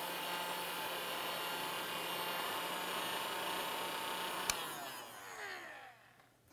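Electric heat gun running steadily, its fan blowing hot air onto heat-shrink tubing over a soldered wire splice. About four and a half seconds in it is switched off with a click, and the fan whines down in falling pitch.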